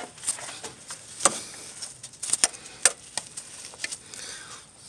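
Irregular light clicks and taps of small metal parts being handled at a throttle body, as the throttle lever is pushed back to work the throttle cable end out of its slot.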